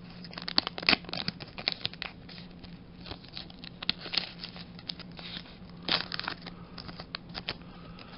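Foil booster-pack wrapper being torn open and handled, a run of irregular crinkles, crackles and short rustles, with a faint steady hum underneath.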